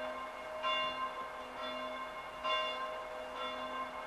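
Church bells ringing, a new stroke about every second over a steady, lingering ring.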